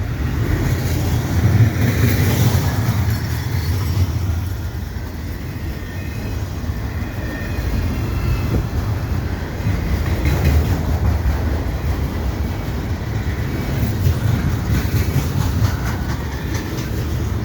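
Freight train rolling past, its wheels clattering steadily on the rails.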